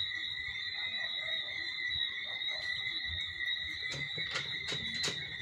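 Steady high-pitched chorus of insects, a continuous outdoor drone, with a few faint soft clicks about four to five seconds in.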